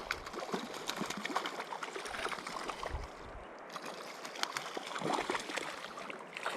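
Mountain river water running and trickling, with many small splashes and drips close by.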